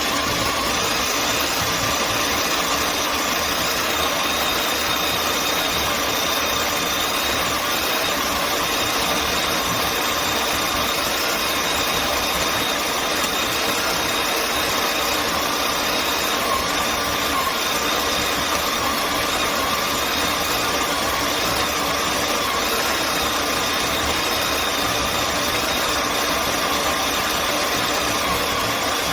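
ZWILLING Enfinigy electric conical burr coffee grinder running steadily, its motor and burrs making a continuous whirring noise.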